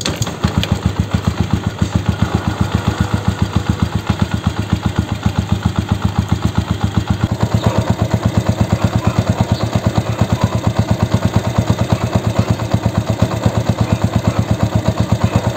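Yamaha YTX 125's single-cylinder four-stroke engine kick-started, catching at once and settling into a steady idle with even, regular exhaust pulses. It runs smooth, without clatter inside the engine, freshly flushed and filled with new oil.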